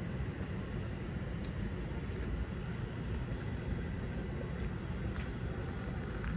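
Steady low rumble of outdoor city ambience with a faint hiss above it; no single event stands out.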